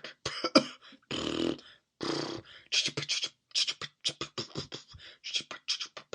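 A person imitating a sputtering, coughing motor with the mouth. It goes in irregular bursts: a few longer splutters in the first couple of seconds, then a run of short, quick pops.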